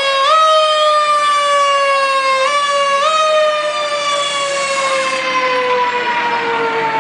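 Fire ladder truck's siren slowly winding down in pitch, pushed back up in short steps a few times early on, its tone rich in overtones. A brief hiss about four seconds in.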